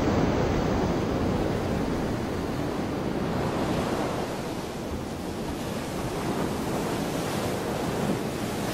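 Steady rushing roar of water and wind as the spray from underwater explosion plumes falls back into the sea, with wind buffeting the microphone. No sharp blast is heard; the sound eases a little around the middle.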